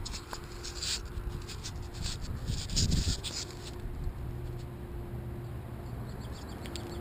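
Scratchy rustling and handling noise as a phone brushes against streamside grass stalks, with scattered small clicks over a low steady rumble.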